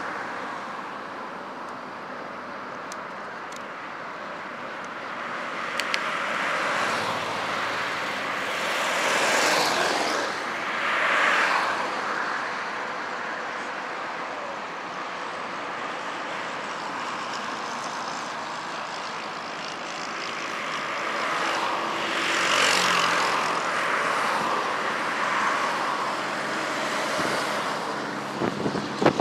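Jet airliner engines heard across an airfield as airliners taxi and take off: a steady rushing engine noise that swells and fades several times, loudest about a third of the way in and again past two-thirds.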